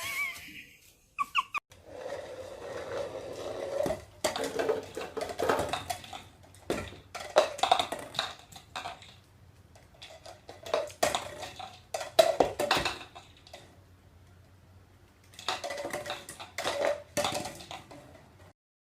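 Irregular clattering and clinking of small hard objects, with scattered knocks and short squeaks.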